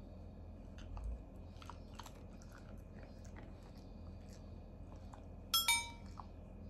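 Faint scattered crunching clicks of a black Shiba Inu chewing a small treat. About five and a half seconds in comes a short bright chime with ringing overtones, the loudest sound.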